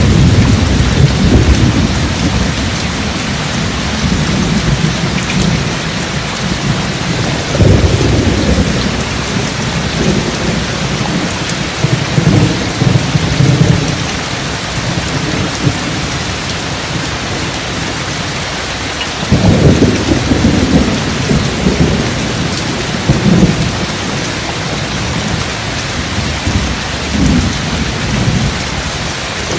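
Steady heavy rain with deep rolls of thunder. The thunder swells at the start, again about seven seconds in, and again about nineteen seconds in.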